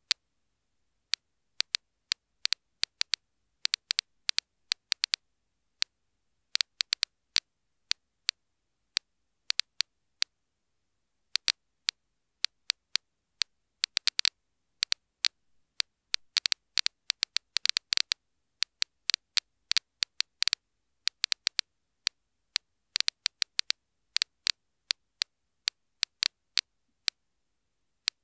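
Soviet DP-66 Geiger counter clicking at random, uneven intervals: sharp single ticks, at times several a second in clusters, counting radiation from an old 1970s photo lens. The uploader labels this stretch as rising radiation.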